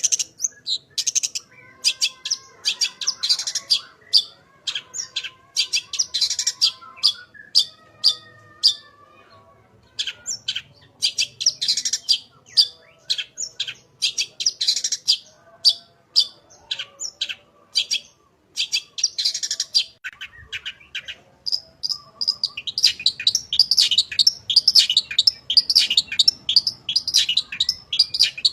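Long-tailed shrike (cendet) singing: rapid bursts of short, sharp, high chirps broken by brief pauses, running into a dense, unbroken stream of notes near the end.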